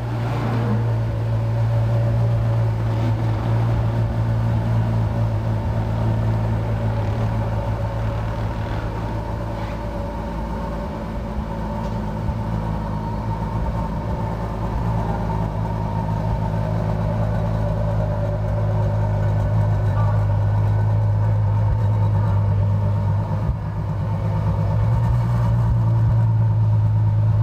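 Ferrari FF's V12 engine idling steadily just after start-up, through its exhaust. Near the end the engine note lifts slightly.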